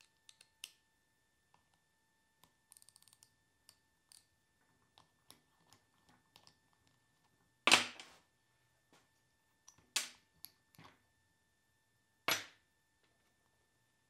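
Small metallic clicks and taps of steering-rack parts being handled on a steel workbench, with three sharp clanks a couple of seconds apart in the second half, the first the loudest.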